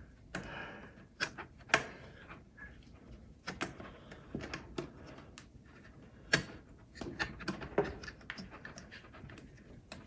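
Pry pick and metal spudger working around the seam of an M4 Mac mini's bottom cover, with irregular sharp clicks and soft scraping as the cover is levered loose.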